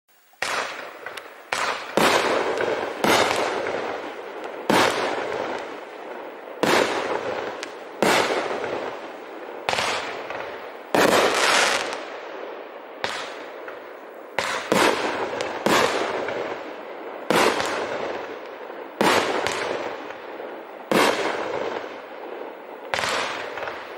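A Shogun 'Stars & Strobes' 21-shot consumer fireworks cake firing its shots one after another, roughly one a second, sometimes two close together. Each shot is a sharp bang that trails off over a second or so.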